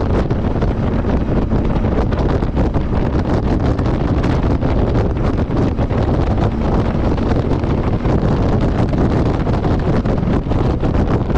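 Steady, loud wind rushing and buffeting over the microphone of a camera on a moving motorcycle, with the bike's engine and road noise running underneath.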